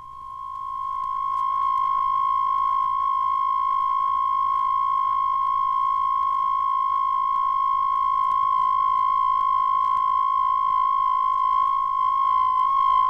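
Electronic science-fiction sound effect: a single steady, high electronic tone that swells in over the first second or two and then holds one pitch, with faint record-surface clicks.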